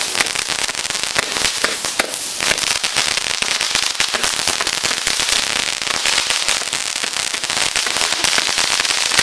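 Fireworks firing in a continuous barrage: a dense crackling, fizzing hiss peppered with many sharp cracks as spark-trailing comets shoot up.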